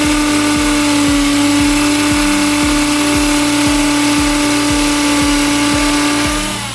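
Electric drill running steadily at high speed, a strong motor whine over a dense grinding hiss, then spinning down with a falling pitch near the end.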